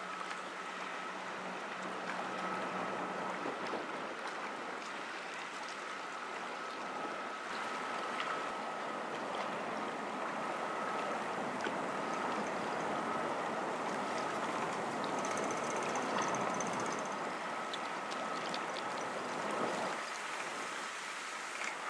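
River water rushing along the hull and bow wave of a passing small cargo ship, with a faint steady high whine throughout. The rush swells through the middle and drops off shortly before the end.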